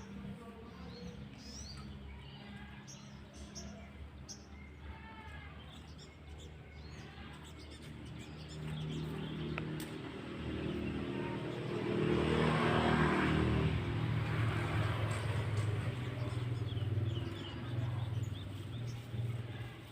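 Small birds chirping in short high calls throughout, while a motor vehicle's engine grows louder from about eight seconds in, is loudest a few seconds later, then fades near the end.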